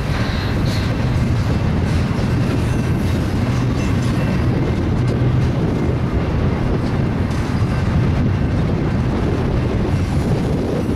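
Double-stack intermodal freight train passing close by: the steady, loud rumble of well-car wheels rolling on the rails.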